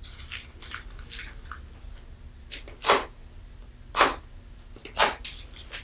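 Fingers poking and pressing glitter-glue slime made with liquid starch: soft wet squelches, then three louder short pops about a second apart as air pockets break in the slime.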